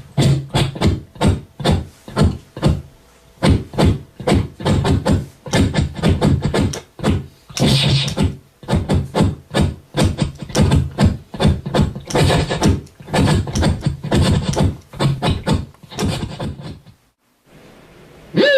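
A man's mouth-made sound effects imitating a kung fu fight: a fast string of short punch, kick and whoosh hits with grunts, about two or three a second. They stop about a second and a half before the end.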